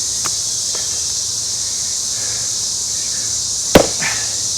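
A single heavy axe blow into a green red pine round about four seconds in, a sharp crack with a short ringing tail, after two faint knocks near the start. A steady high chirring of insects runs underneath.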